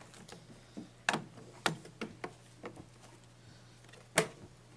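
Plastic cover of an air fryer oven being handled and fitted into place: a series of sharp clicks and knocks, about six, with the loudest one near the end.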